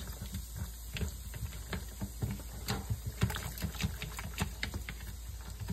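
Irregular small taps, clicks and light splashes as a gloved hand shakes blackberries around in a strainer sitting in a ceramic bowl of soaking water.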